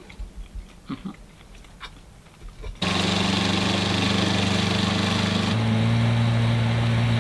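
Small outboard motor on an inflatable dinghy running steadily under way, cutting in suddenly about three seconds in after a few faint clinks of cutlery on plates; its note shifts a little past halfway.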